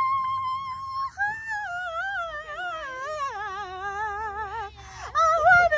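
A woman singing in a high voice: one long held note with vibrato, then a wavering run of notes that falls in pitch. Near the end come a few short high phrases.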